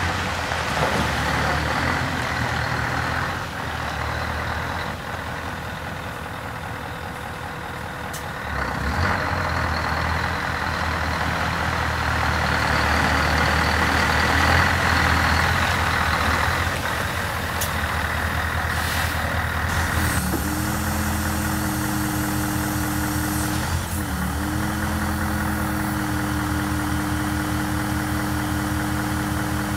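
Scania R164 480 truck's 16-litre V8 diesel engine running as the truck drives and manoeuvres, its note rising and falling. About two-thirds of the way in it settles into a steady drone with a steady whine above it, as the loader crane's hydraulics work the stabiliser leg.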